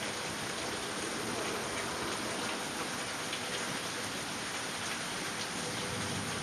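Steady heavy rain: a dense, even hiss of falling water with scattered individual drops ticking through it.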